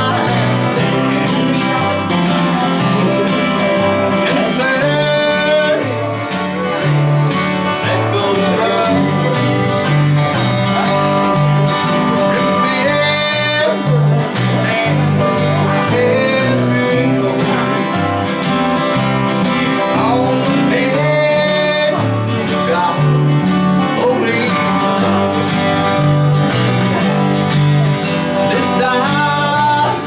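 A man singing a country gospel song in a full voice, accompanying himself on a strummed acoustic guitar.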